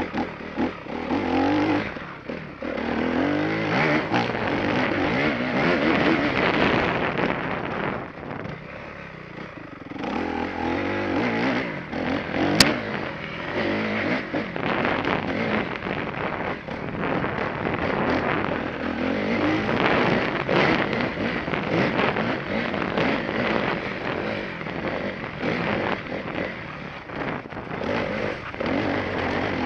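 Enduro motorcycle engine revving up and down under changing throttle as it is ridden hard. A quieter, off-throttle stretch comes around eight to ten seconds in, and a single sharp click about twelve and a half seconds in.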